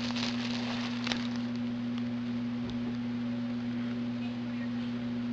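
Steady low electrical hum over faint hiss, with a light click about a second in and another faint click later.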